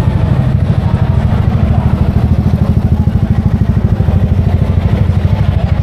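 Motorbike engine running with a loud, steady low throb.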